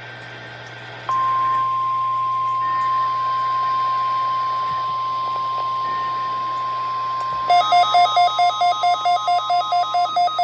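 NOAA Weather Radio's 1050 Hz warning alarm tone, sent for its weekly test: one steady single-pitch tone over radio hiss, starting about a second in. About seven seconds in, a weather radio receiver's alarm goes off, set off by the tone: a loud warbling electronic beep pulsing about three times a second.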